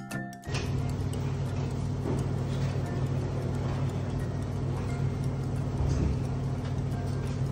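Background music that cuts off suddenly about half a second in, followed by a steady low hum and hiss of room noise, with a few faint taps of cardboard puzzle pieces being handled.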